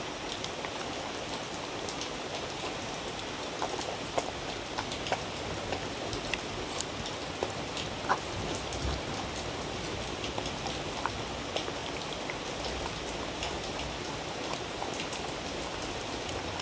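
A dog eating from a wooden bowl: irregular wet chewing and licking clicks, a few sharper ones, over a steady hiss.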